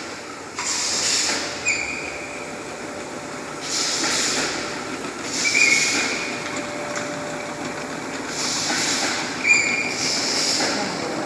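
Fully automatic aerosol filling machine running: bursts of air hiss from its pneumatic valves repeat every few seconds, with short high squeaks in between.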